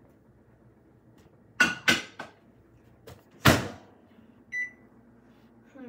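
Microwave oven being loaded and set: a few sharp clicks, then a loud slam of the door about three and a half seconds in, and a single short electronic beep from the keypad.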